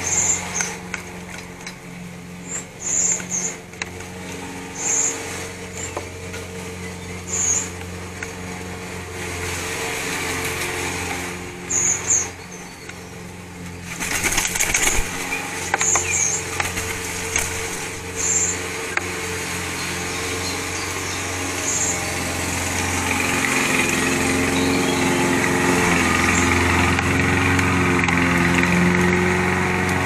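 A small engine running steadily, like a lawn mower, getting louder about two-thirds of the way through. Short high bird chirps break in every couple of seconds during the first two-thirds.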